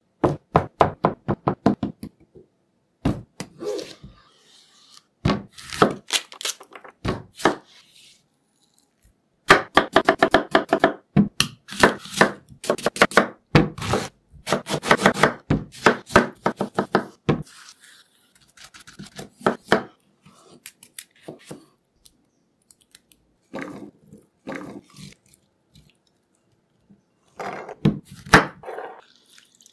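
Kitchen knife chopping and slicing fruit on a plastic cutting board: runs of quick, regular strokes with pauses between them.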